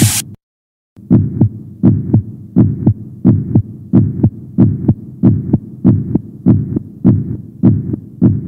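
Heartbeat sound effect: steady paired lub-dub thumps, about three double beats every two seconds, after a rising whoosh cuts off right at the start and a short pause.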